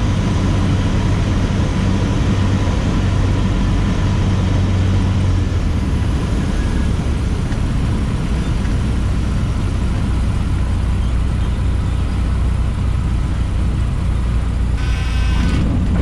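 Cessna 150J's Continental O-200 four-cylinder engine heard from inside the cabin, running at low power through the landing and rollout as a steady drone. Its note drops lower about five seconds in.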